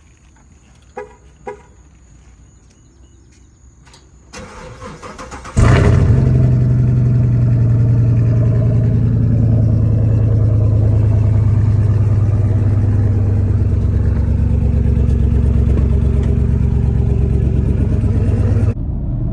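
Chevrolet Camaro 2SS's 6.2-litre V8 being started: after two short clicks, the starter cranks for about a second, then the engine catches about five and a half seconds in and idles steadily and loudly. The sound drops off abruptly near the end.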